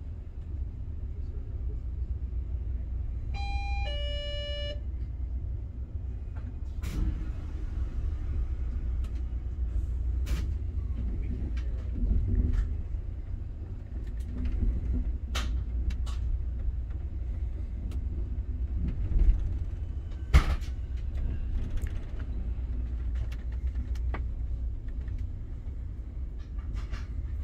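Amtrak Southwest Chief passenger car rolling slowly, heard from inside: a steady low rumble with scattered sharp clanks and knocks, the loudest a bit past the middle. About four seconds in, a descending two-note chime sounds.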